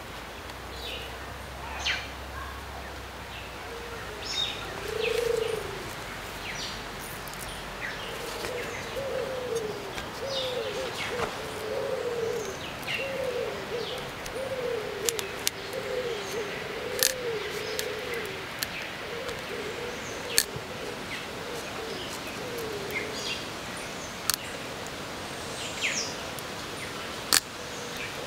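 Forest birds calling: a low cooing call repeated in a long series of short rising-and-falling notes, with high chirps from other birds over it. Several sharp clicks sound from about halfway through.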